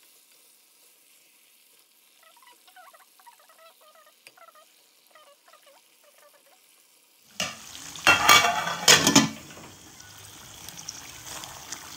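Chicken pieces frying in a spiced yogurt gravy in an aluminium pot, stirred with a wooden spoon. The sizzle starts suddenly about seven seconds in and is loudest for a second or so, with the spoon scraping through it. Before that there are only faint, short high chirps.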